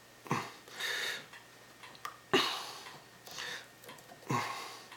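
A man's short, forceful exhales and soft grunts of effort, about five in all, each a quick noisy puff that fades, as he strains to press a seal into place by hand.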